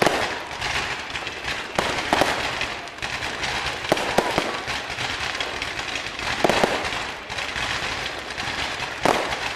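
Fireworks going off all around: a constant crackle of small firecracker pops, with louder bangs every second or two.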